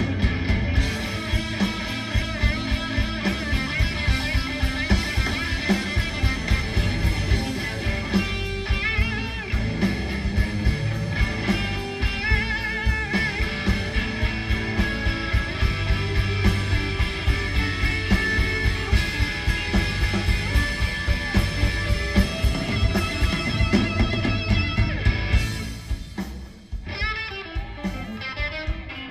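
Live rock band playing, with guitars over bass guitar and drums, heard from an audience recording in an arena. The music drops away briefly about 26 seconds in, then picks up again.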